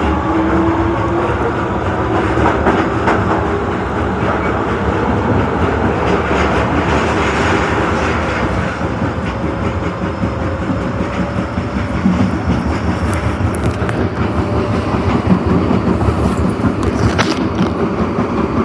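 Osaka Metro Tanimachi Line 22 series subway train running at speed: a steady rumble with irregular clicks of the wheels over the rails. A motor whine rising in pitch fades out at the very start.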